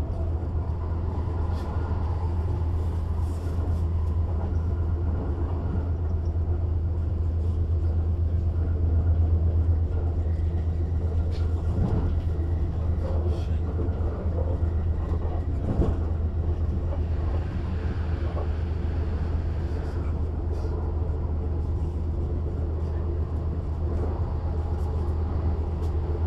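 Heard on board a Bombardier/Alstom ET 422 S-Bahn electric multiple unit: a steady low hum from the train's electrics with rolling noise, and a couple of short knocks from the track about halfway through.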